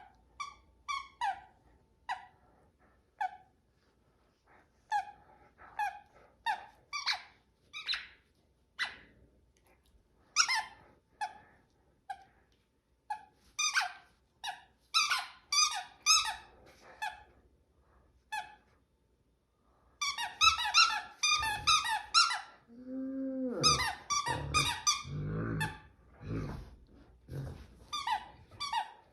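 Squeaky dog toy squeaking again and again in short, sharp, falling squeaks as a wolfhound chews it. Past two-thirds of the way the squeaking comes faster and louder, and the dog gives a low, drawn-out, falling vocal sound, then low grumbling mixed in with the squeaks.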